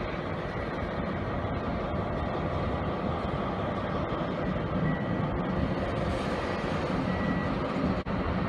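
BB 75000-class diesel-electric freight locomotive running as it hauls a train of hopper wagons past, a steady engine and wheel rumble that grows louder after the middle as it comes close. A thin high tone comes and goes through it, and the sound drops out for an instant near the end.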